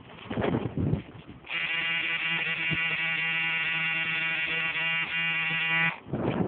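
A steady, even-pitched buzz starts about a second and a half in and stops abruptly near the end. Wind rumbles on the microphone before and after it.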